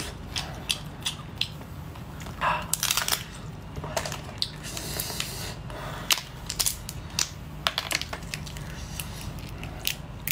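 Shell of a cooked lobster tail cracking and crackling in irregular snaps as it is pulled apart by hand, with a cluster of cracks about two and a half seconds in, over a low steady hum.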